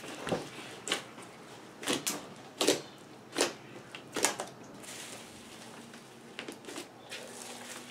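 Hands kneading and squeezing a big mass of floam slime packed with styrofoam beads: irregular crackly squishes and pops, one about every half second to second, with a quieter stretch a little past the middle.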